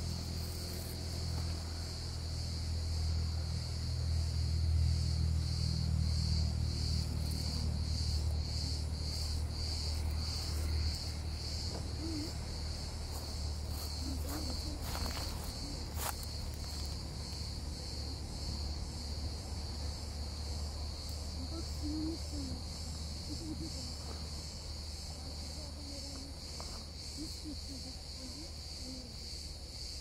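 Insects singing in a steady high chorus that pulses about twice a second, over a low rumble that is strongest in the first ten seconds. Two sharp clicks come about halfway through.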